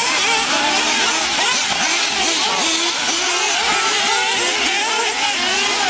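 Several nitro RC buggy engines buzzing and revving up and down as the cars race, their pitches rising and falling against one another.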